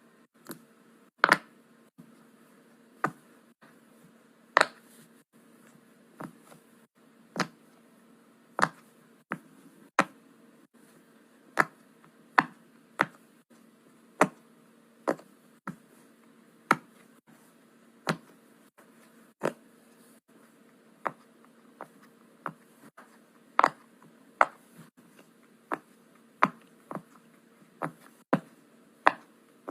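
A fidget toy clicking sharply again and again, in an irregular rhythm of about one to two clicks a second.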